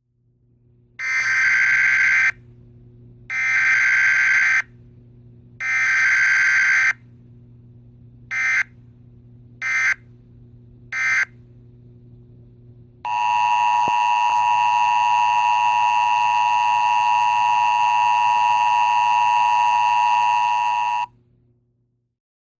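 Emergency Alert System test tones from an EAS simulator app: three screeching digital data bursts of about a second each (the SAME header), then three much shorter bursts. About halfway through comes the steady two-tone EAS attention signal, held for about eight seconds before it cuts off.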